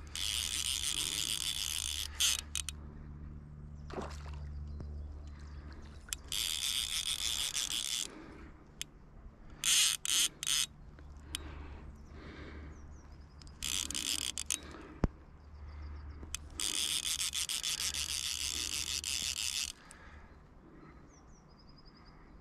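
Fly reel's click-and-pawl drag ratcheting in about five fast buzzing bursts, the longest about three seconds near the end, as a hooked rainbow trout is played on the fly rod.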